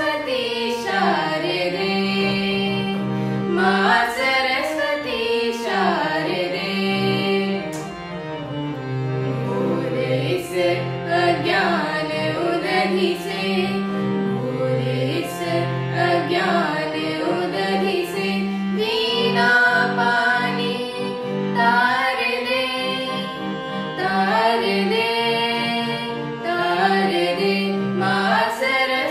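A boy and a woman singing a devotional song together in an Indian classical style, with gliding melodic lines over long held low accompanying notes.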